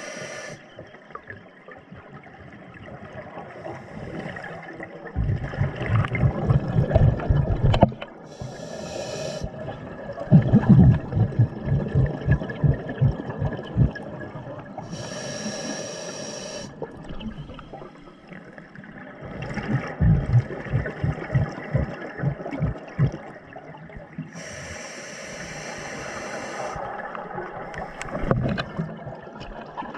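Scuba diver breathing underwater through a regulator: a hiss on each inhale, then a longer burst of bubbling exhaust, repeating in a slow, regular cycle, a few breaths in all.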